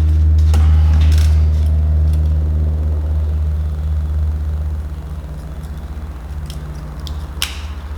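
Low steady hum of a running vehicle engine. It eases to a lighter, pulsing note about halfway through, with a few light clicks and rustles of small handling.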